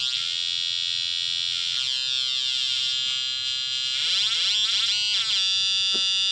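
Atari Punk Console, a two-555-timer square-wave synth running at 9 volts, buzzing through a small speaker as its knobs are turned. Its harsh, harmonic-rich tone jumps between discrete pitch steps, and in the second half it sweeps quickly up and down before settling.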